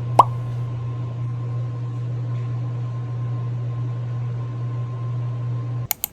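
Microwave oven running with a steady low hum, with a loud sharp click just after it starts. The hum cuts off abruptly near the end, followed by two quick clicks.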